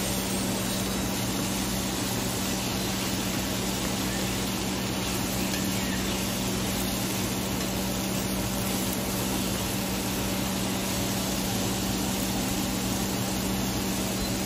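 Steady sizzling of mushrooms sautéing in butter and olive oil in a pan, over a steady low hum.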